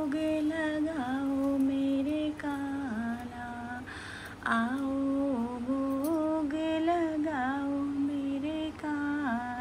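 A woman humming a slow, wordless tune in long held notes with small slides, pausing for a breath about four seconds in.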